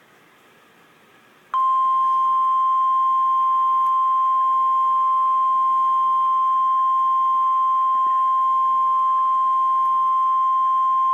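Emergency Alert System attention signal: the single steady tone of the NOAA Weather Radio warning alarm, which starts abruptly about a second and a half in and is held unbroken at one pitch. It announces that a severe thunderstorm warning follows.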